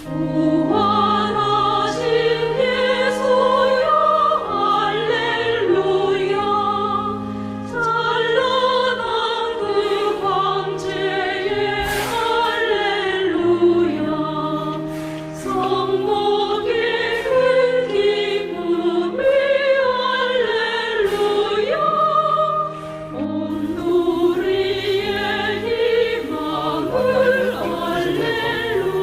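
Background music: a choir singing a slow, sacred-sounding piece over held accompaniment chords, with brief pauses between phrases.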